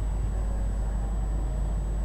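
Steady street traffic noise from cars and motorbikes passing, under a constant low rumble.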